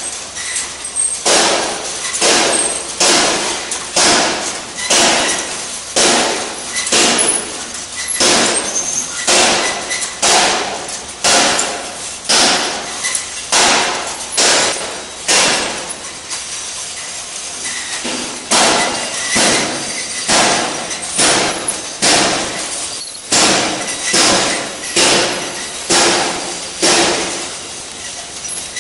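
Chopstick packing machine running: a sharp metallic clack with a short ring, about once a second, that stops for a couple of seconds midway and then starts again.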